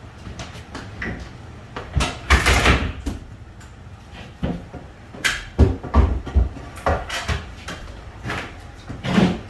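A run of knocks and heavy thumps as a countertop slab and its wheeled cart are lifted and shifted, with a longer scraping rush about two seconds in.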